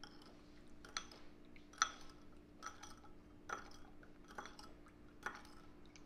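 A spoon stirring a fish-sauce dipping sauce in a bowl, clinking against the side about once a second. A faint steady hum runs underneath.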